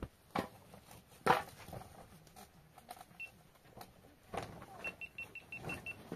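A few sharp knocks and thumps from tarps, wooden poles and rugs being handled as a tarp shelter is put up; the loudest comes about a second in. Near the end there is a quick run of seven short, high pips at one pitch.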